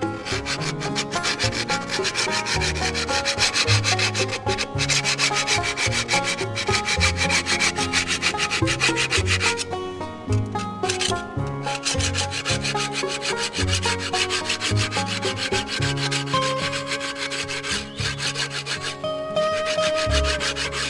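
Rapid back-and-forth scraping of a steel hand scraper along the edge of an Austrian scythe blade, metal rasping on metal in long runs of quick strokes. The strokes break off for a moment about ten seconds in and ease off near the end.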